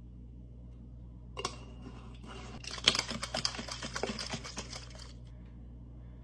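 A hard-boiled egg shaken hard inside a glass jar: a single click about a second and a half in, then a couple of seconds of rapid knocking and rattling as the egg hits the glass, cracking its shell loose for peeling.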